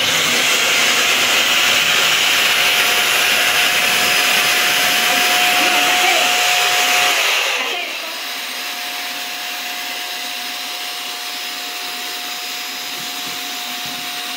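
New cordless vacuum cleaner switched on for its first test run, its motor starting suddenly and running with a steady whine. About seven and a half seconds in it drops to a quieter level and keeps running steadily.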